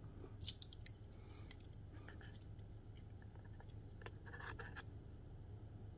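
Faint clicks and scrapes of fingers and a small metal tool working a discrete op-amp module's wire leads and pins on a DAC circuit board: a few sharp clicks in the first second, then scattered ticks and a cluster of scraping clicks about four seconds in.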